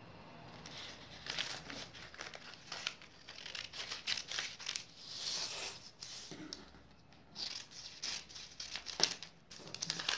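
Scissors snipping through a brown-paper sewing pattern, with the paper crinkling and rustling as it is handled and turned. The snips and crinkles come in uneven bursts, with a short lull a little past the middle.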